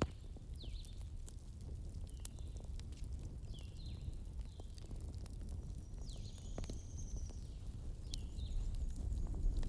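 Campfire crackling, with sharp irregular pops over a low steady rumble, and short, high, sliding chirps recurring about once a second.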